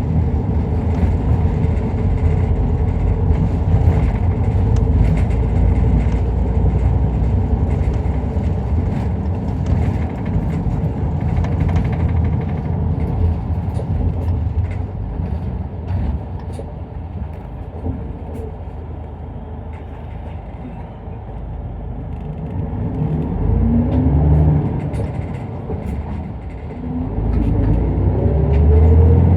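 Isuzu Erga Mio bus running, heard from inside the cabin: a steady engine drone and road noise that eases off in the middle, then the engine revs up twice near the end as the bus accelerates.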